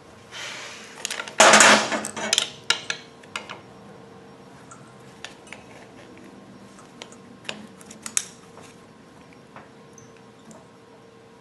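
Steel hand tools clinking and scraping against the metal housing and hub of a hydraulic final drive motor as a screwdriver and pry bar are set in place. A scrape comes first, then a loud clatter about one and a half seconds in, then scattered light taps and clicks over a faint steady hum.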